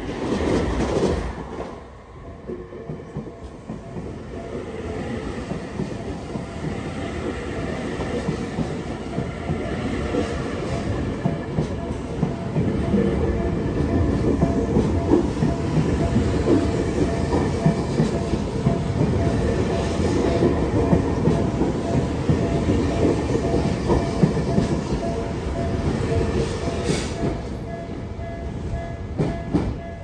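A Tokyu electric train running slowly through a level crossing, the wheels clicking over the rails. It builds up, is loudest in the middle and eases near the end, with the crossing's warning bell ringing under it.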